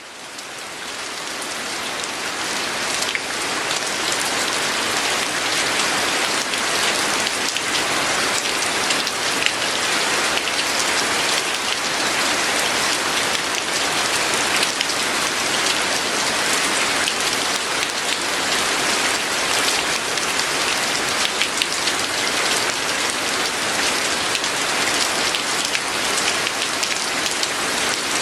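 Steady rain falling on surfaces: a dense hiss of many drops, fading in over the first three seconds or so and then holding even.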